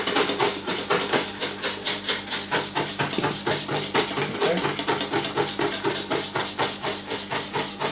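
A whisk beating quickly and steadily against a mixing bowl, about eight clicking strokes a second. The eggs are being whisked while hot cream and milk are poured in gradually, to temper them for custard without scrambling.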